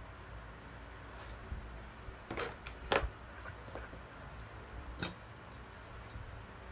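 A few sharp plastic clicks from plastic model kit work at a desk: a small cluster, a louder single click shortly after, and one more about two seconds later.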